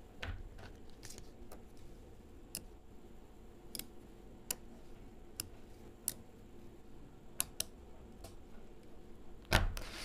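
Small magnetic balls clicking against each other as they are pulled apart and pressed into place by hand, a dozen or so separate sharp clicks, with a louder clack about nine and a half seconds in.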